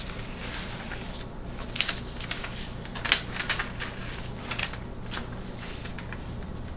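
Paper pages and inserts of a handmade junk journal being turned and handled: soft paper rustling with several short, sharp crinkles and flaps.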